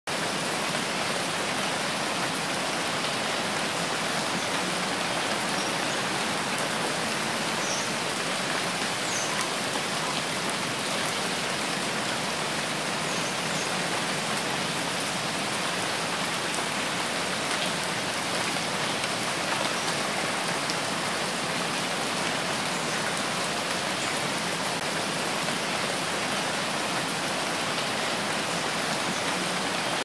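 Steady rain falling: an even hiss with no let-up.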